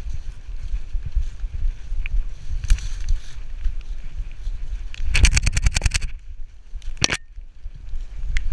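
Body-borne camera noise from a Labrador retriever moving through dry fallen leaves: a steady low rumble and scattered rustles and clicks. About five seconds in comes a rapid rattling of about a dozen knocks in a second, and a single sharp click follows a second or so later.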